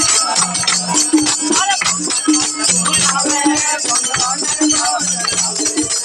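A Marwari desi bhajan sung by a group of men, accompanied by rapid rhythmic clapping and shaken, rattling percussion.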